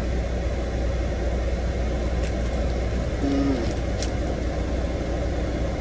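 Steady low rumble of a semi-truck's idling diesel engine heard inside the cab, with a few faint clicks about two and four seconds in.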